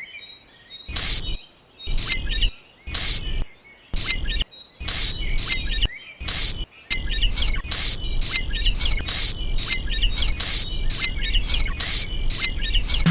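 Birds chirping over a rapid series of sharp knocks or clicks, with a low rumble under them that becomes steady about halfway through.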